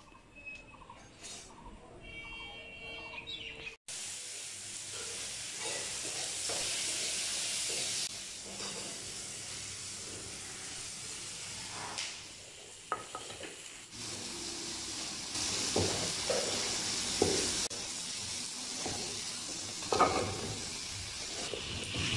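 Pumpkin cubes frying in spiced oil in a pan: a steady sizzle that starts abruptly about four seconds in. A metal spatula stirs and scrapes against the pan, with a few sharp knocks in the second half.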